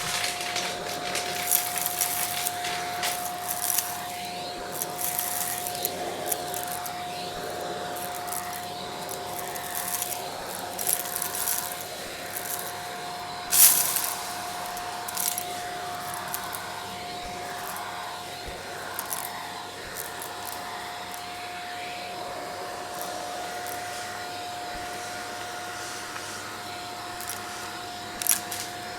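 Vacuum cleaner running steadily with a brush attachment over stair carpet, its motor holding one steady whine, with scattered crackles and clicks of debris being sucked up and one louder click about halfway through.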